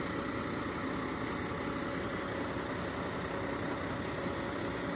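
A vehicle engine idling steadily, with a faint steady tone over an even rumble.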